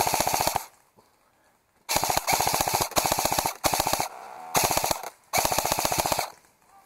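Airsoft electric rifle (AEG) firing on full auto in short bursts, about six of them, each under a second long: a fast, even rattle of shots.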